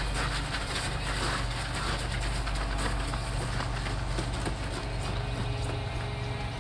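Scuffling, then several people's running footsteps on pavement, many short irregular thuds, over a steady low rumble.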